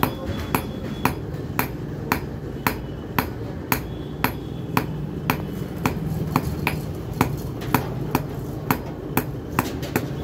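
Hand hammer beating a red-hot steel rod on a small anvil block, hand-forging it, at a steady rhythm of about two sharp metallic blows a second.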